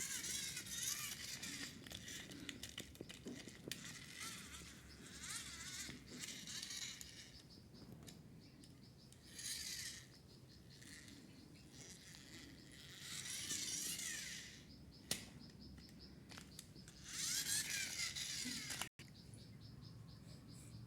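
Several separate bursts of crinkling, rustling handling noise with a few light clicks between them, the last burst cut off abruptly.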